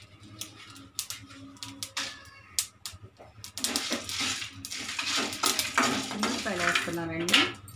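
A metal spoon clicking and scraping against a dry metal kadai as dried red chillies are stirred into dry-roasting coriander and cumin seeds, without oil. Scattered taps at first, turning into denser scraping about halfway through.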